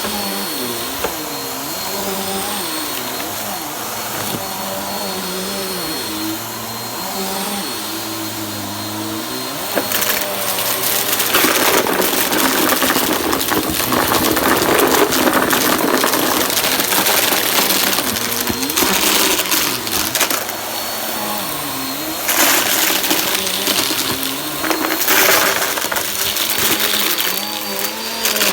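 Vacuum cleaner running, its motor pitch wavering up and down as the nozzle is worked over the floor. Twice there are long stretches of crackling and rattling as crunchy debris is sucked up.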